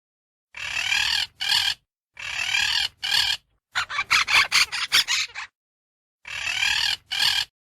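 Parrot squawking: harsh calls in pairs, with a quick run of short squawks in the middle.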